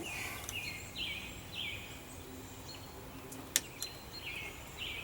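A bird calling over and over in short, falling chirps, several in a row, with a pause in the middle. Two sharp clicks come about three and a half seconds in.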